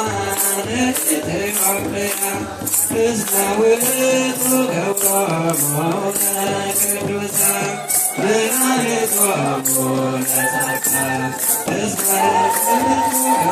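Ethiopian Orthodox wereb chant: voices singing a slow, gliding melody together, kept in time by about two shakes a second of a tsenatsil (sistrum) and a low drum beat.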